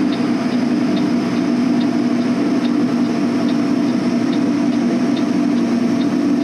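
Semi truck's diesel engine running steadily, a constant low drone heard from inside the cab, with a faint tick a little more than once a second.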